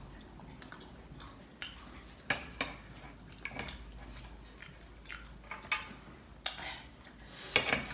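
Mukbang eating sounds: close-up chewing with a dozen or so short, sharp clicks and taps scattered irregularly throughout.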